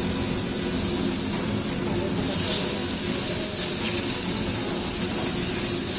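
Food sizzling on a hot wok at a restaurant cooking station: a steady, even hiss, with a low hum and faint chatter underneath.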